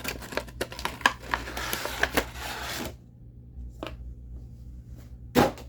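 Action figure packaging being handled: a quick flurry of plastic clicks and rustling for about three seconds, then a few separate sharp clicks, the loudest near the end.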